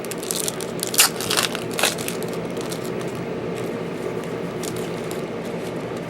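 Trading-card packaging crinkling and crackling as it is handled. There is a cluster of sharp crackles in the first two seconds, loudest about a second in, and then only a steady low hum.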